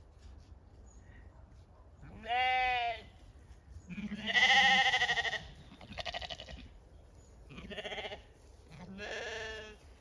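Zwartbles sheep bleating five times, starting about two seconds in; the second call is the loudest and longest, with a quavering wobble.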